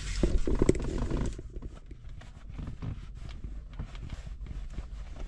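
Handling noise from car wiring and connectors being probed with a voltmeter: rustling and clicks, louder in the first second or so, then faint scattered ticks.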